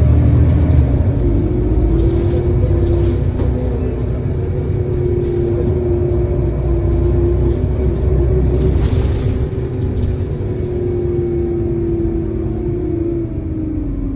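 Heuliez GX 427 articulated city bus at a standstill: its diesel engine rumbles at idle under the steady whine of its engine cooling fan. The fan's whine falls in pitch near the end as the fan slows.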